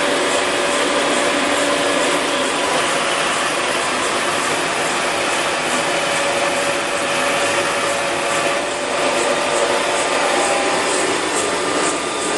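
Bokö milling machine running under power: a steady mechanical hum and rattle of its motor and gearing, with a few held tones through it.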